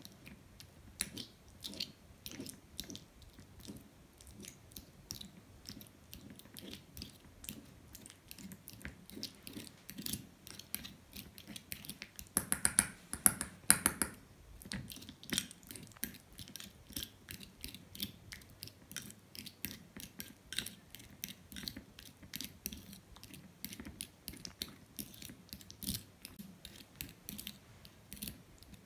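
Metal fork clicking and scraping against a ceramic bowl as it mashes egg yolk into soft white cheese: a quick, uneven run of small clicks, busiest and loudest about halfway through.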